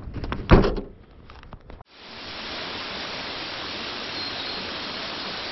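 Footsteps and gear knocking while walking on pavement, with one loud thump about half a second in. After a brief cut-out, a steady, even hiss sets in and holds.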